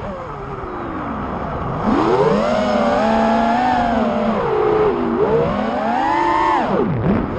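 Armattan Rooster 5-inch FPV quadcopter's brushless motors (2150kv) and props, changing pitch with the throttle. The pitch falls low at the start, rises sharply about two seconds in and holds with a wavering whine, dips about five seconds in, climbs again, then drops steeply near the end.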